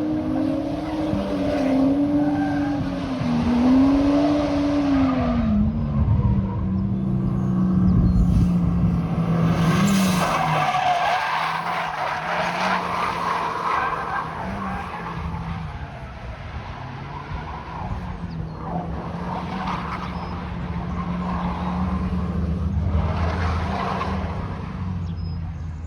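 Drift car driven hard with tyres skidding. The engine revs rise and fall repeatedly over the first five seconds or so, then hold steadier.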